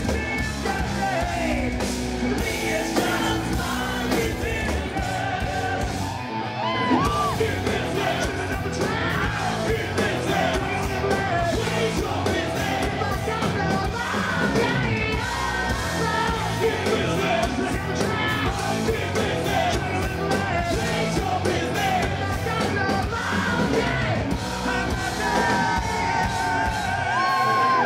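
Live hard rock band playing, with a male singer singing and yelling into the microphone over the band.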